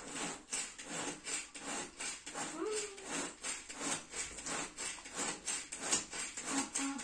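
Kitchen knife working through a hand-held tomato in quick repeated strokes, a short scraping knock about three times a second.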